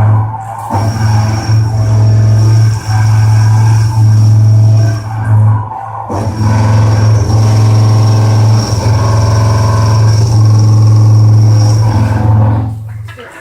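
CNC milling machine cutting metal with a new tool: a loud, steady low hum with many overtones and a thin high whine, broken by a few brief dips where the cut eases, dying away near the end.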